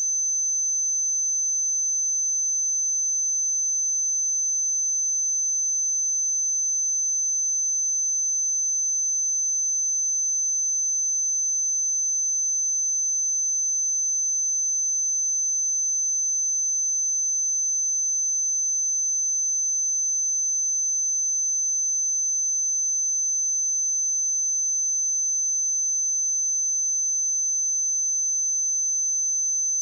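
A steady, unchanging high-pitched pure tone: a 6145 Hz sine-wave test tone for checking speakers or headphones.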